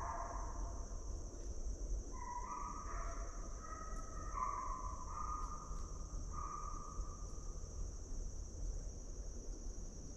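Steady high-pitched drone of insects in the woods, with a run of short pitched calls from some animal a little lower, coming and going in the first half.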